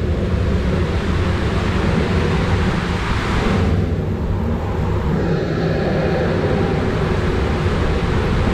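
Water rushing through an enclosed tube water slide during a ride, under a continuous low rumble from the slide's thunderstorm sound effect. The hiss swells twice, about three seconds in and again near the end.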